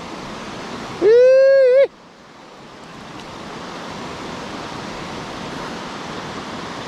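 Steady rush of flowing river water. About a second in, a loud, high whoop from a person's voice lasts just under a second.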